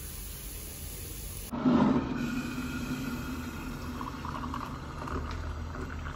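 Scrambled eggs and ham sizzling in a frying pan with a steady hiss, then, about a second and a half in, water poured from a kettle into a ceramic mug: a splash as the stream hits, then a steady filling sound.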